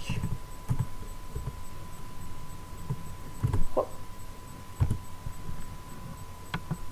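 Computer keyboard keystrokes and mouse clicks, heard as irregular dull thumps with a few sharper clicks, over a faint steady high tone.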